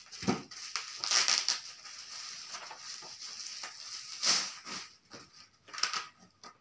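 Clear plastic wrapping crinkling and crackling as it is cut with scissors and pulled off a wrapped bundle, in uneven bursts, loudest about a second in and again just past four seconds.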